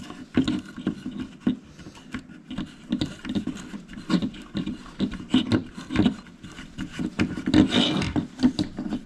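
A stiff filter belt being fitted by hand onto a vending-machine tea brewer: irregular crinkling and rubbing of the belt sheet against the brewer's plastic and metal parts, with small knocks, and a longer scrape about eight seconds in.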